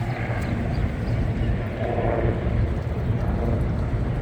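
Ferry engines running with a steady low rumble.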